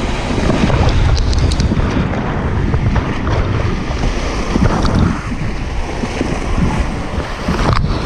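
Loud rushing and splashing of river whitewater in a rapid around an inflatable raft, with heavy wind rumble on the microphone.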